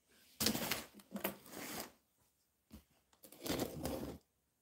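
Large cardboard shipping box being moved and slid across a wooden counter: two stretches of scraping and rustling cardboard, one starting about half a second in, the other near the end.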